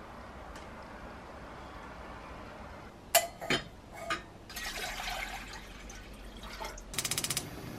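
A white enamel saucepan set down on a gas stove grate with a couple of sharp clacks, then water poured into it from a glass measuring cup. Near the end comes a quick run of rapid ticks, about ten a second, from the gas burner's igniter.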